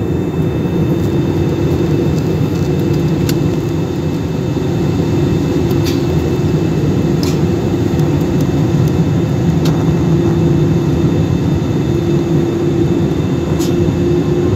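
Cabin noise of an Airbus A320 descending toward landing, heard from a window seat over the wing: a steady rumble of engines and airflow with a hum that edges up in pitch near the end, and a few light clicks.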